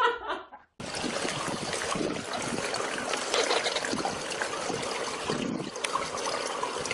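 Running water trickling and splashing steadily, starting after a short break about a second in.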